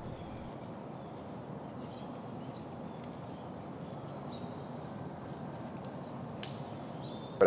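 White-tailed deer buck walking through dry fallen leaves: a steady rustling and crunching of leaf litter underfoot, with one sharp click near the end.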